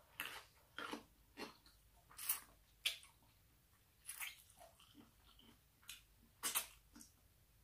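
A person chewing a mouthful of rice noodles in curry, eaten by hand: short separate mouth sounds at irregular intervals.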